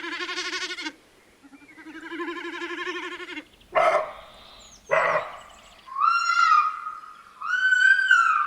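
A sequence of wild animal calls. First come two wavering, bleat-like calls, then two short sharp barks about a second apart, then two longer, higher-pitched held calls near the end.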